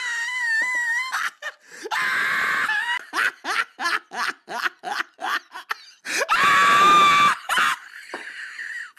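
Domestic cat yowling: a drawn-out, wavering cry, then a quick run of short cries about three a second that sound like 'no, no, no', and another long, louder cry.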